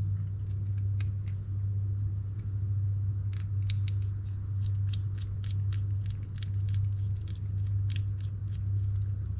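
A steady low hum with a run of light, sharp clicks and ticks from about three seconds in, several a second, as the spinning reel and its newly fitted handle are handled and worked at the bench.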